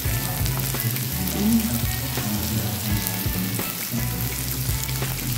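Shrimp, fish and zucchini slices sizzling on the hot plate of an electric raclette grill: a steady frying hiss with small crackles and a low hum underneath.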